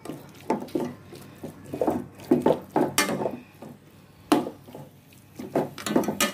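Spatula scraping and knocking against the pot as chunks of beef coated in haleem spice mix are stirred and browned, in irregular strokes with one sharp knock a little past the middle.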